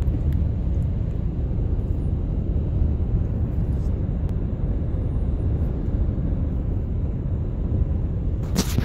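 Steady low road and engine rumble heard inside the cabin of a moving car, with one short, sharp noise near the end.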